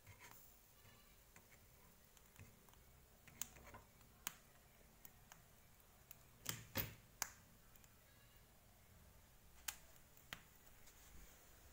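Scattered faint clicks and taps of a knife against an egg roasting on a gas stove burner, about eight sharp ticks spread out, the loudest pair a bit past the middle.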